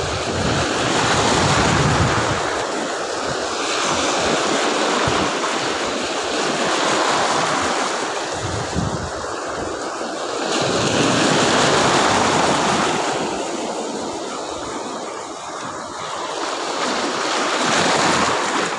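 Surf breaking and washing up a sandy beach, swelling and easing about every five or six seconds, with wind buffeting the microphone.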